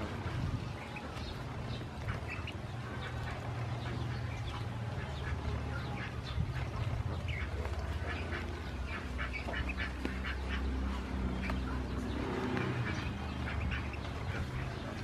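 A group of ducklings peeping in many short, high calls while they feed, over a steady low rumble.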